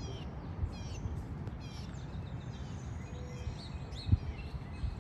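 Small birds chirping, quick high falling chirps in repeated runs in the first two seconds and fainter ones later, over a low steady background rumble. A single sharp thump about four seconds in.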